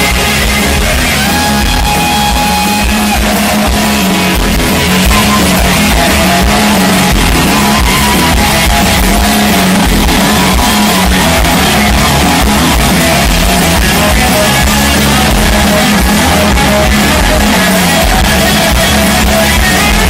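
Loud live rock band performance, with electric guitar prominent over drums.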